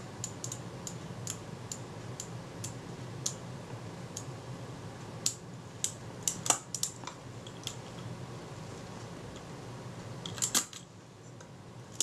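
Kodak Retina IIa's exposed film-advance mechanism worked by hand: a string of small, irregular metal clicks, bunched into a quick cluster about halfway through and another near the end, over a low steady background hum.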